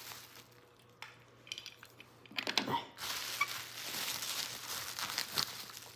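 Crinkling of packaging, with light clicks and knocks as small plastic toy train cargo cars are handled and set down on a countertop. It starts almost silent; the clicks begin about a second in, bunch together near the middle, and steady crinkling follows.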